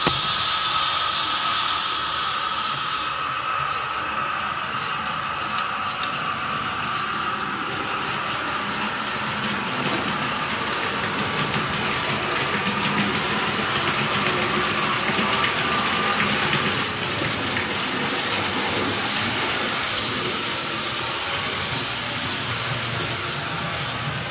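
Märklin HO model train running on the layout: a steady rushing sound with a high tone and scattered short clicks from the wheels on the track, growing a little louder in the middle.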